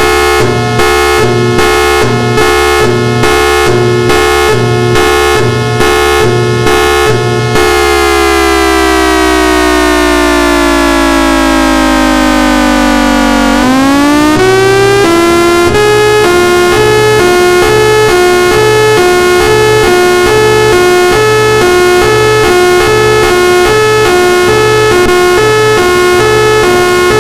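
Thunderbolt 1003A siren sounding a steady two-note chord that pulses about one and a half times a second. About eight seconds in, its pitch winds down for about six seconds, then climbs quickly back up and holds steady, pulsing again.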